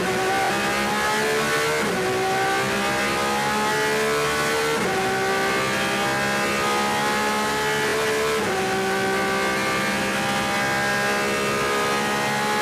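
Porsche 911 RSR's flat-six racing engine heard from the cockpit, accelerating hard through the gears. The pitch climbs, drops sharply at upshifts about two, five and eight and a half seconds in, and climbs more slowly in each higher gear.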